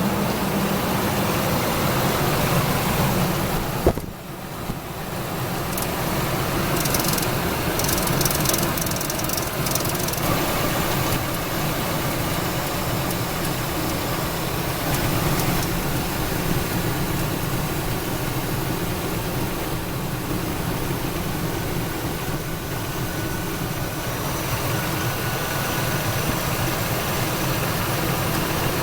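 Ford 5.4L Modular V8 of a 2000 F-150 running at idle, with a sharp click about four seconds in and a brief dip in level. It carries a slappy, ticky noise up front that the owner hopes is an accessory bearing but suspects is the timing chain slack adjusters.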